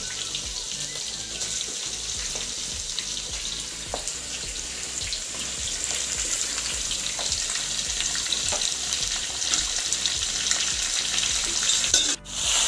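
Raw chicken pieces sizzling in hot oil with fried onions in a large aluminium kadhai, a steady frying hiss. The sound drops out for a moment near the end.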